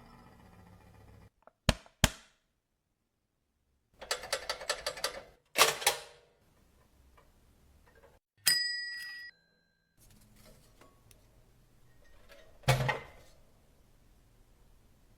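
Restored vintage mechanical cash register being operated: a couple of key clicks, a quick run of rattling mechanism clicks, a louder clack, then a bell ding about eight seconds in that rings and dies away, and a heavy thunk near the end.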